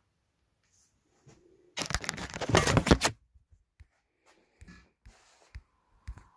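Handling noise on the recording phone: a loud rustling scrape lasting just over a second, about two seconds in, then a few soft knocks and bumps as the phone is moved.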